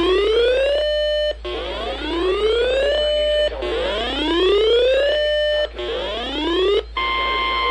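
Weather alert alarm: a rising whoop tone repeated about every two seconds, four times, then a steady high tone begins near the end, the 1050 Hz NOAA Weather Radio warning alarm tone that signals an incoming alert.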